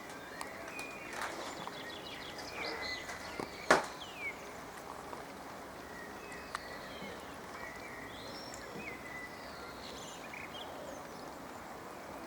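Outdoor ambience: a steady background hiss with scattered bird calls, short whistles and chirps. One sharp click stands out a little under four seconds in.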